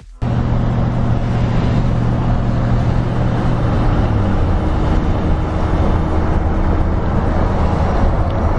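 Car driving with a rear window open: steady rushing wind and road noise under a low engine hum.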